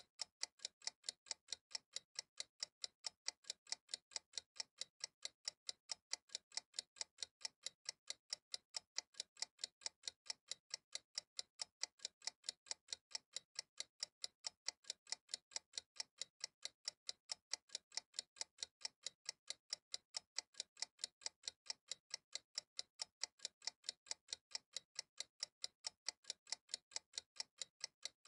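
Steady, even ticking, about five sharp ticks a second, running without a break like a clock.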